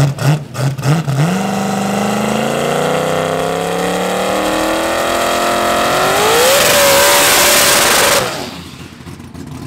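Fox-body Ford Mustang drag car doing a burnout. The engine blips unevenly, then revs in one long, steadily rising climb. About six seconds in it jumps higher and holds there with the hiss of spinning rear tires, then lets off abruptly about eight seconds in.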